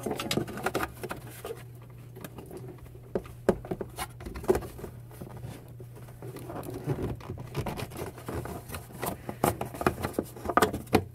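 Irregular clicks, taps and scrapes of hard plastic being handled: fingers and a plastic pry tool working at the black bumper trim and its push clips while prying the piece free.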